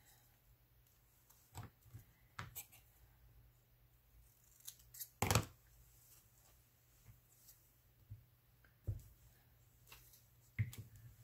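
Paper scraps being handled and pressed down: a scattered series of short, crisp paper crackles and taps, the loudest about five seconds in.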